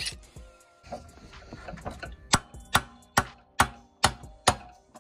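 Six sharp hammer blows on a small engine's flywheel, at about two a second, knocking it loose from the crankshaft taper. A few faint clicks and knocks come before them.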